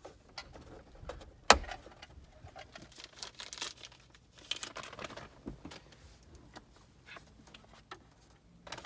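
Plastic dashboard trim pieces being handled and fitted by hand: one sharp click about a second and a half in, the loudest sound, then scattered small clicks and rattling.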